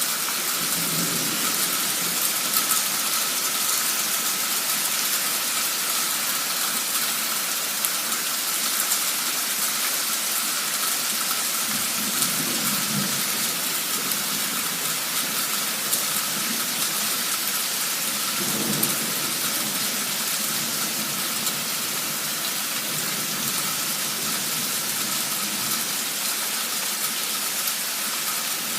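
Heavy cloudburst rain hissing steadily. Low thunder rumbles come in about a second in, again around twelve seconds in and once more around nineteen seconds in.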